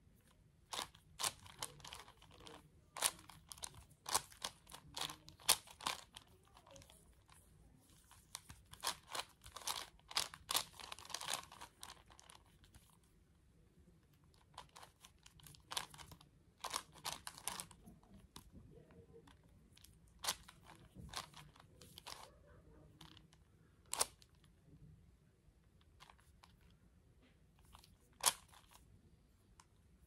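A plastic 5x5x5 Rubik's cube being turned by hand: layers clicking and scraping as they rotate, in quick irregular runs of turns. The turning is busy through the first half and turns sparser later, with single clicks between pauses.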